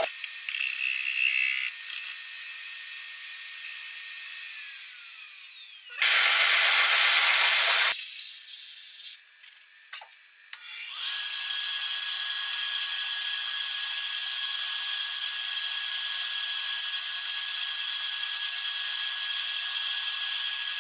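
Grizzly wood lathe running while a square-ended scraper, then sandpaper, works the inside of a spinning wooden bowl, a hissing rub of tool on wood. A falling whine comes about five seconds in, a loud hiss breaks in for about two seconds just after, and from about eleven seconds the running is steady with a thin, steady whine.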